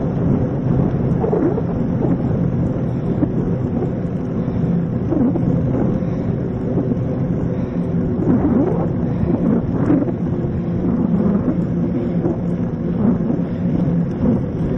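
Niner mountain bike riding over a dirt trail, heard through its handlebar-mounted camera: a steady rumble of tyres and frame with scattered short rattles and knocks, and wind on the microphone.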